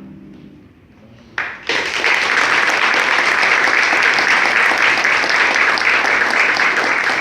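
The last notes of a pedal harp fade out, then after about a second of near quiet an audience bursts into applause and keeps clapping steadily.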